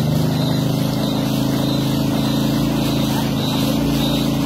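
Motorboat engine running at a steady pitch while moving at speed, with water rushing past.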